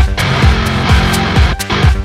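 Instrumental djent metal: distorted extended-range electric guitars and drums, with deep bass hits that drop in pitch about twice a second.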